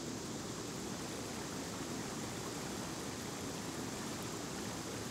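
Steady rushing noise of water and wind as a small aluminium jon boat moves along a river, even throughout with no distinct strokes or tones.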